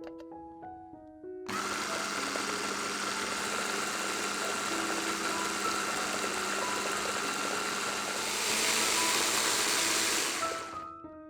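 A small electric kitchen appliance motor, such as a blender, starts suddenly and runs with a steady hum for about nine seconds. It grows louder and higher near the end, then winds down, over soft piano music.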